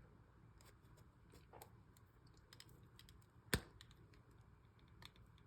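Faint scattered clicks and ticks of a balisong being handled, its hardware-free spacers tugged at to show they hold firm, with one sharp click about three and a half seconds in.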